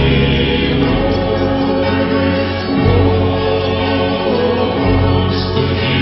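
Music: a choir singing long held chords over a low bass, the chord changing about three seconds in and again near five seconds.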